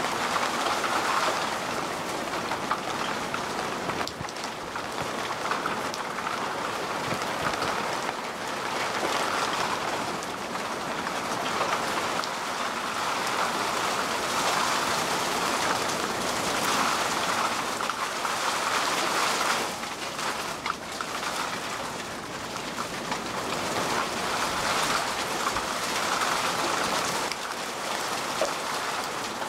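Heavy downpour: a steady hiss of torrential rain falling onto the road, swelling and easing every few seconds.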